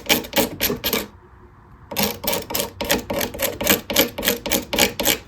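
Razor blade scraping chalky, spackle-like filler from an old repair off a guitar headstock: quick, even strokes about five a second, with a short pause just after the first second.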